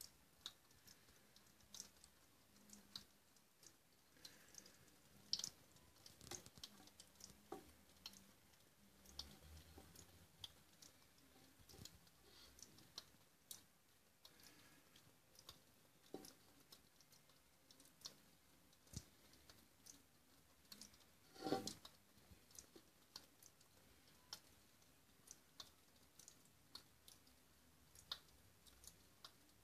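Faint, irregular ticks and clicks of water dripping inside a bathroom ventilation duct from a hidden leak, with one louder knock about 21 seconds in.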